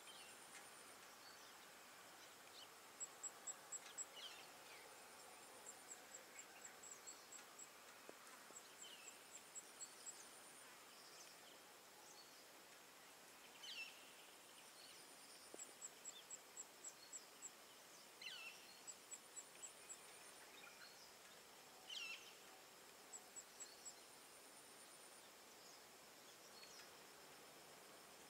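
Faint birds calling: runs of quick, high chirps at about six a second, and every few seconds a short falling whistle.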